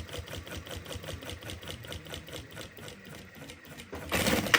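Jack H6 industrial sewing machine stitching heavyweight material at speed, a fast even clatter of needle strokes. About four seconds in there is a brief louder burst of noise as the sewing stops.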